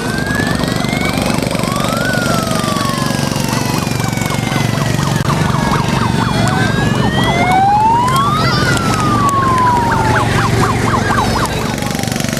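Sirens on Shriners' mini fire engines wailing, two or more at once, each slowly rising and falling in pitch and out of step with the others, over the steady hum of their small engines.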